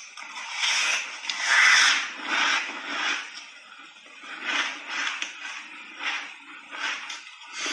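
Crunching of a frozen pink berry ice block coated in milk powder, bitten and then chewed. The loudest crunch comes about one to two seconds in, followed by a string of shorter crunches from the chewing.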